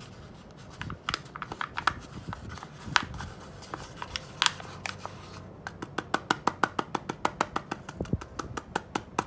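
Fingers tapping and rubbing a paper cone funnel of toner powder set in a laser toner cartridge, shaking the powder down into it: scattered taps and paper rustle, then past halfway a quick run of sharp taps, about six a second.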